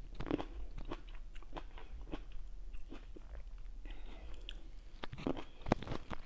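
A person chewing and biting green grapes close to the microphone, with irregular wet crunches. A sharper click stands out near the end.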